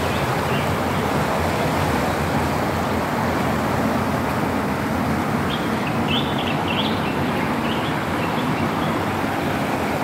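Spring water flowing steadily down a concrete park channel, a continuous rushing murmur. A few short high chirps come near the middle.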